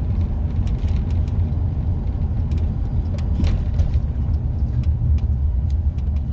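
Steady low rumble of a 1997 Dodge Roadtrek camper van driving slowly, engine and road noise heard from inside the cab, with scattered faint clicks.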